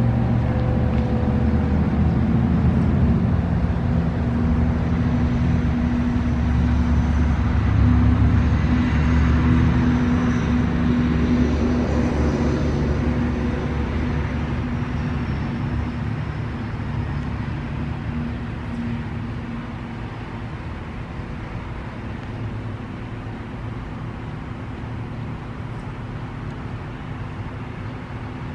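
ACA Allertor 125 siren with an 8/12-port Penetrator shroud winding down after its full-alert test: a low rumble with a faint tone falling in pitch at the start, fading over several seconds about halfway through.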